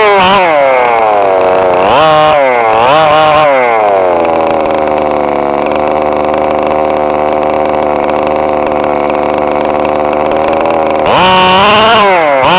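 Small RC car engine revving up and down several times, then holding a steady, high-pitched run for about six seconds before revving up and down again near the end.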